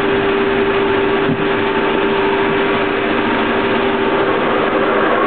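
Soviet 1K62 engine lathe running, a steady machine hum with a held tone.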